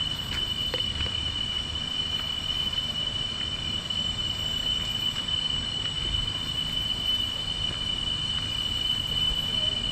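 Cicadas droning in tropical rainforest: one steady high-pitched whine with fainter higher tones above it, over a low rumble.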